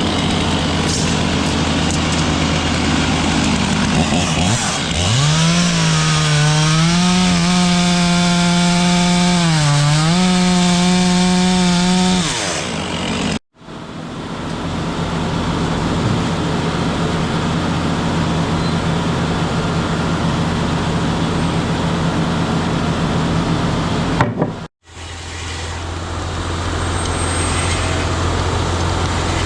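Sawmill running and sawing a log: a steady machine drone throughout, with a strong whine that rises, wavers and dips for several seconds in the first half as the saw works through the wood. The sound drops out abruptly twice, very briefly.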